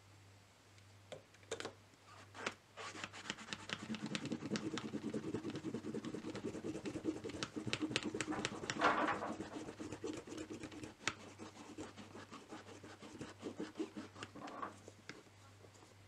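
French press plunger pumped rapidly up and down to whip coffee into foam: a fast, rhythmic scraping and swishing that starts about two and a half seconds in, after a few clicks, and stops shortly before the end.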